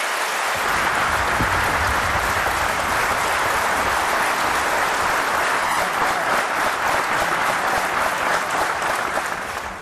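A large audience clapping in a long, steady round of applause that thins out near the end.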